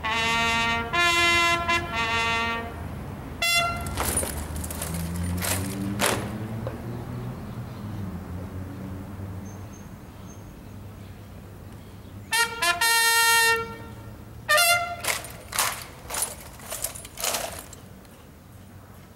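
Military bugle call for honours: short, loud, brassy notes, three at the start and more near the middle. Sharp strikes fall in between.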